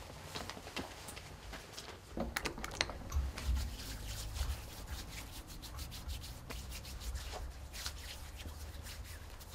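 A few knocks, then hands rubbing together in quick repeated strokes from about three seconds in, working in alcohol hand gel.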